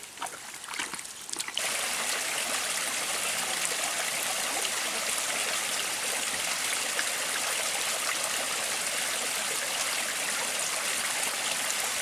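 Spring water trickling and splashing down over wet rocks, a steady even rush that starts suddenly about a second and a half in. Before it come faint clicks and scrapes from digging a channel in wet soil.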